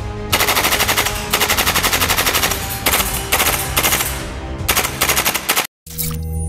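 EMG Black Rain Ordnance Ion 9 gas blowback airsoft carbine firing rapid full-auto bursts: two long bursts of about a second each, then several shorter ones. Background music plays under the shots.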